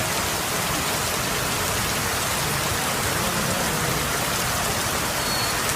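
Steady rain falling: an even, unbroken hiss that holds at one level throughout.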